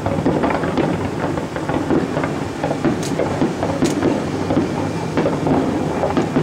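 Fireworks display going off in a rapid, continuous run of bangs and crackles that blend into a steady rumble. Two sharp high cracks stand out about three and four seconds in.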